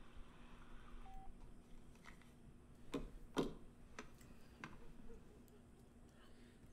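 A single short beep about a second in, then five or so faint clicks and knocks spread over the next few seconds.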